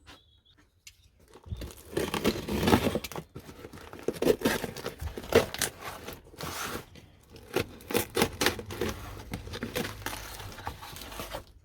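Packaging being torn and crinkled by hand as wrapped items are unpacked from a box: irregular rustling with sharp crackles, starting about a second in.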